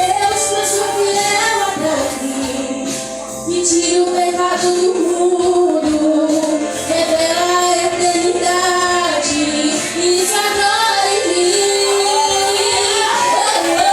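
Female voices singing a slow worship song with instrumental accompaniment.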